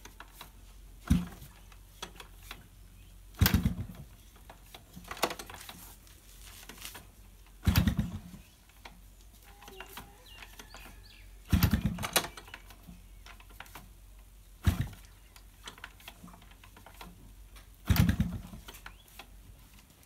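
Yamaha RX100's two-stroke single being kick-started about eight times, a few seconds apart: each stroke is a short clatter of the kick lever and turning engine, and the engine does not catch. The bike stood in rain all night, and the owner suspects a shorted spark plug.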